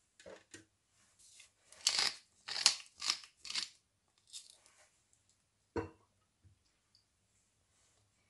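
Pepper mill grinding black pepper over a plated crab dish: a run of crunchy grinding strokes, about two a second, followed by a single knock near six seconds in.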